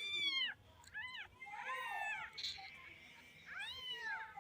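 A cat meowing four times, high-pitched, each meow rising and then falling in pitch.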